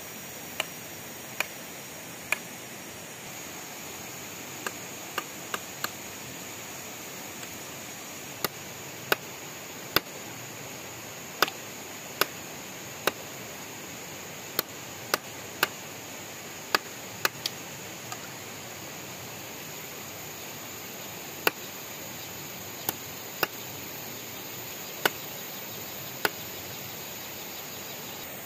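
A knife chopping a skinned frog on a wooden pole, with sharp separate knocks at an uneven pace of roughly one a second. A shallow stream rushes steadily underneath.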